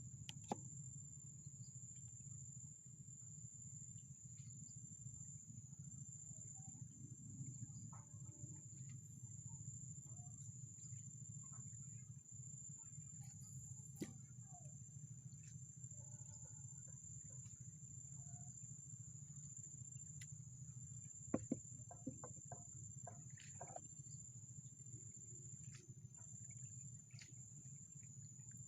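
Quiet riverside ambience: a steady, high, thin drone of insects such as crickets, over a low rumble, with a few faint clicks and knocks. A short cluster of sharper clicks comes about three quarters of the way through.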